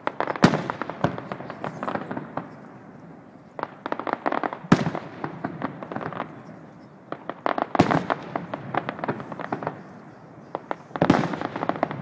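Aerial fireworks display: four heavy booms about three seconds apart, each amid a flurry of rapid sharp crackling pops from bursting shells.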